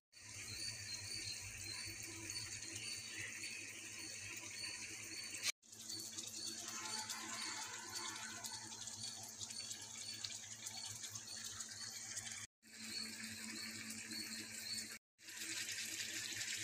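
Chicken pieces sizzling in hot oil in a frying pan: a steady, crackling hiss with a low hum underneath. The sound cuts out suddenly three times.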